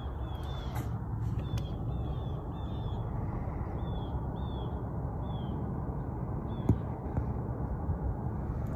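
A small bird repeating a short, high, arched chirp about twice a second, fading out after about six seconds, over a steady low rush of outdoor noise. A single sharp tap comes near the end.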